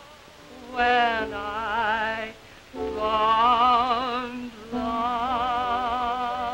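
A woman singing in operatic style with a wide vibrato over a piano accompaniment, in three long phrases with short breaks between them.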